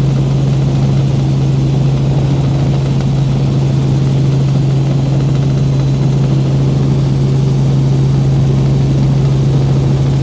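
Helicopter in flight heard from inside the cabin: a loud, steady drone with a strong low hum held at one pitch.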